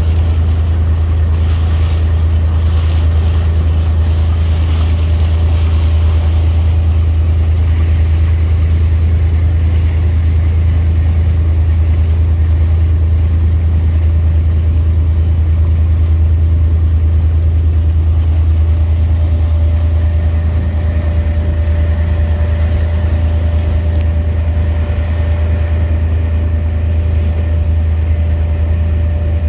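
Boat engine running steadily with a deep, even drone, over a hiss of wind and water. A faint steady whine joins about two-thirds of the way through.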